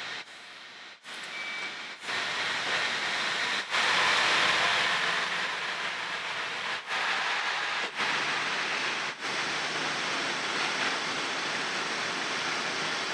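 HB-E300 hybrid train moving along a station platform: a steady rushing noise of the train running, broken by several abrupt cuts.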